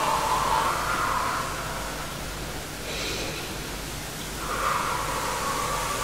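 A woman's Pilates breathing: a long exhale blown out through the lips fading about a second and a half in, a short inhale about three seconds in, then another long exhale from about four and a half seconds.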